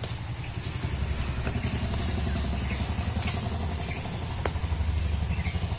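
A low, steady engine rumble with a rapid even pulse, like a small engine idling, with a few faint bird chirps over it.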